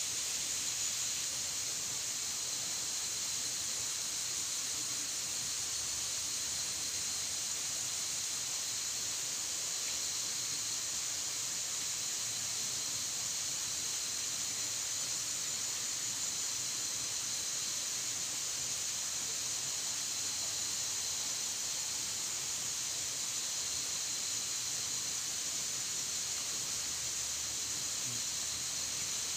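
Steady, high-pitched drone of insects shrilling without pause, one of its higher layers dropping out about eight seconds in.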